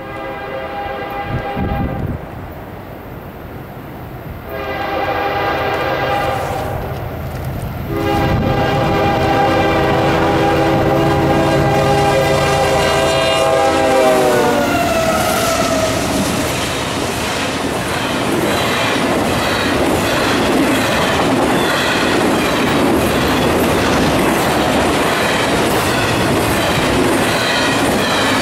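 A CSX diesel freight locomotive's air horn sounds three blasts for a grade crossing, the last one long, and it drops in pitch as the locomotive passes. The horn gives way to the loud rumble and clickety-clack of the intermodal cars rolling by at speed.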